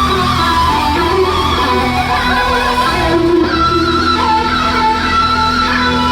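Amplified electric guitar played live with the band, holding long sustained notes with some sliding pitch over a steady low drone.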